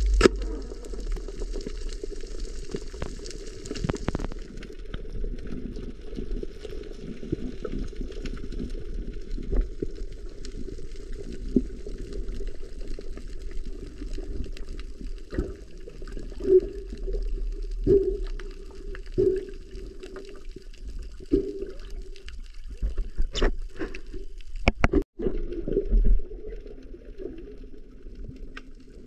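Muffled underwater sound picked up by a submerged camera: water moving and bubbling, with scattered clicks and knocks and a few short dull tones around the middle.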